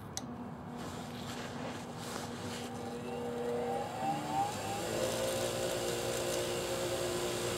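Delta 6-inch bench grinder switched on with a click, its motor humming as the wheels come up to speed with a rising whine a few seconds in, then running steadily.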